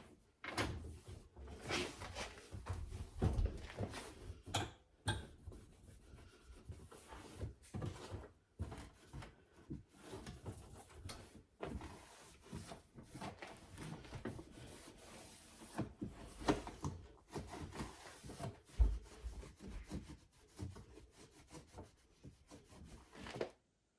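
Cloth rubbing and scrubbing against the inside of a dishwasher around the door gasket, in uneven strokes with scattered light knocks and a few duller thumps.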